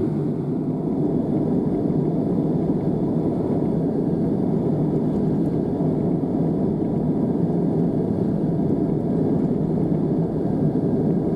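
Steady low rushing hum of an airliner cabin, with no change in level.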